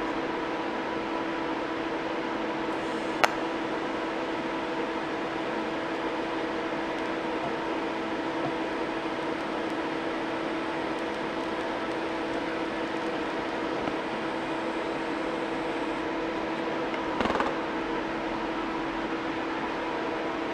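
Steady machine hum of a TIG welding setup in use on a steel bracket, with one sharp click about three seconds in and a short burst of noise near the end; the welding arc itself adds little that stands out.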